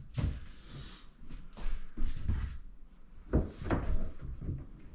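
Several knocks and thuds of the rotomolded plastic shell of a Gunner G1 Intermediate dog kennel being handled and set in place.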